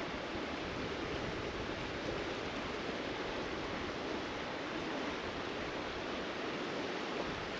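Steady rushing noise of a flowing mountain creek.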